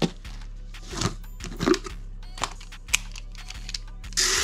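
Plastic tub of airsoft BBs being opened and handled: scattered clicks and knocks from the lid and container, then, near the end, a loud rattling rush of plastic BBs as a hand digs into the tub.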